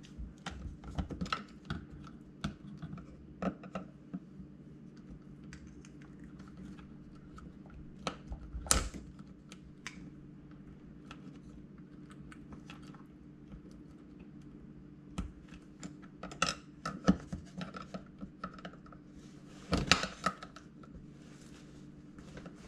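Flathead screwdriver prying at a plastic part held by metal gripper clips, making irregular clicks and scrapes, with louder clicks about a third of the way in and again near the end.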